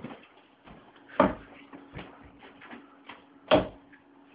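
Two darts thudding into a dartboard about two and a half seconds apart, with lighter clicks in between.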